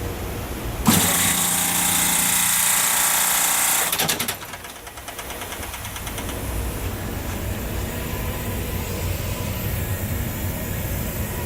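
30-ton refrigeration compressor pumping down with a loud steady hiss and hum, cutting out about four seconds in with a quick rattle of clicks. A quieter steady hiss follows: refrigerant gas bleeding back through the compressor's leaking Discus valves.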